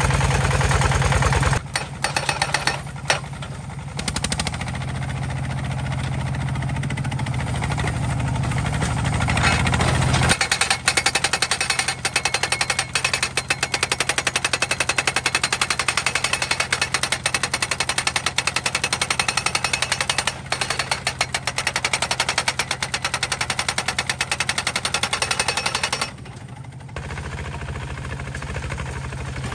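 Homemade hydraulic post-driving hammer pounding a steel fence post with rapid, even blows, over a D15 single-cylinder diesel engine running. The hammering stops near the end, leaving only the diesel engine.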